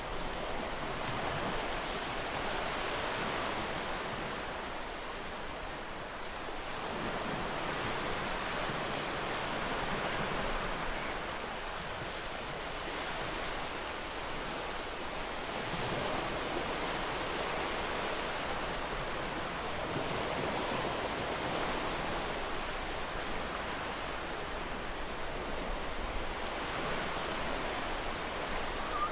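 Ocean surf breaking and washing on the shore, a steady rush of water that swells and eases every few seconds as each wave comes in.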